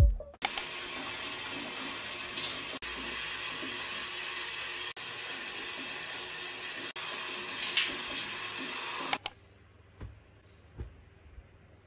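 Shower water running in a steady rush, cutting off suddenly about nine seconds in, followed by a few faint soft handling sounds.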